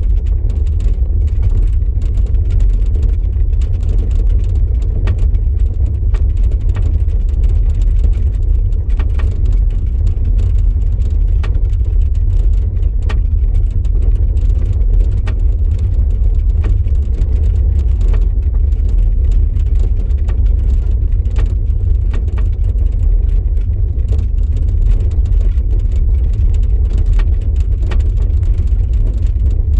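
VW e-Up electric car on the move: a steady low rumble with many faint, irregular clicks and ticks through it, the kind of noise the owner traces to the rear axle.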